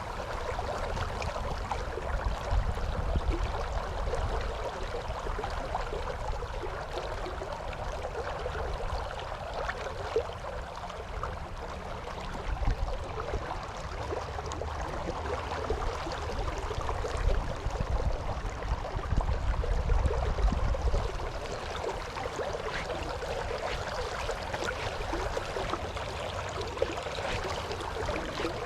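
River water rushing steadily, with gusts of wind buffeting the microphone that swell a couple of seconds in and again past the middle.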